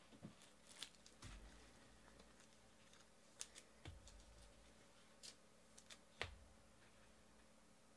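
Faint scattered clicks and light taps, with three soft thumps, of hands handling trading cards and their packaging on a table.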